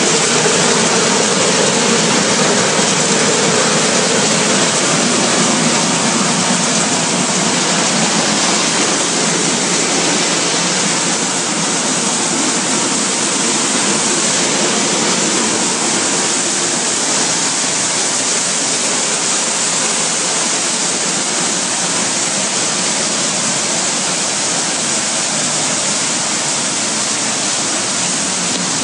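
Plastic-flake colour sorter line running: a steady, loud rushing din of flakes pouring through the machine together with its machinery.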